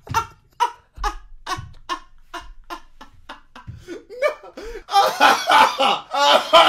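A man laughing hard in quick, rhythmic bursts, which break into louder, higher laughter about five seconds in.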